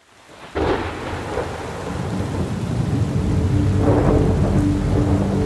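Thunderstorm: a sudden clap of thunder about half a second in, rumbling on over steady rain, with a second burst of thunder around four seconds in. Soft sustained music tones come in past the middle.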